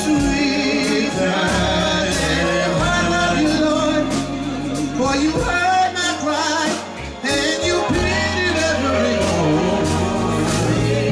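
Male lead voice singing a gospel song live, backed by other voices, over a low bass line that steps between notes and regular percussive hits.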